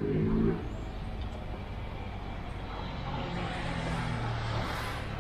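A motor vehicle passing on a city street. Its engine hum and tyre noise swell toward the end.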